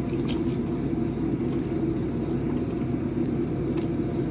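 A steady low mechanical drone, with a few faint clicks near the start.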